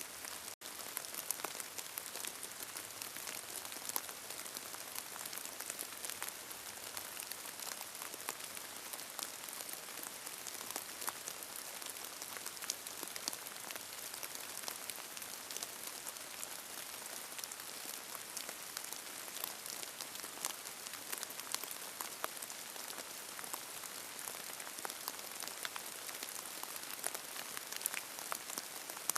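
Steady rain falling, with many small individual drop hits and no thunder; the sound drops out for an instant about half a second in.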